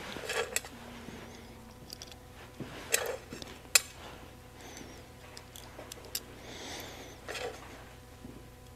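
Light metallic clicks and taps from handling a brass trigger guard against a revolver frame while fitting it over the trigger spring: a handful of scattered clicks, the sharpest a little under four seconds in.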